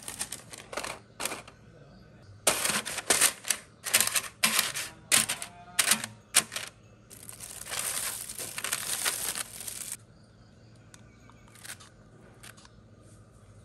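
A paper air-fryer liner crinkling and metal tongs tapping in the basket. A quick run of sharp rustles and taps comes first, then a few seconds of steady paper rustling, then a few faint taps.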